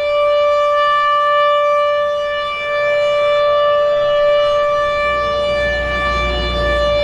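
ACA PN-20 outdoor warning siren sounding its steady alert tone: one held pitch with strong overtones that swells and dips slightly in loudness.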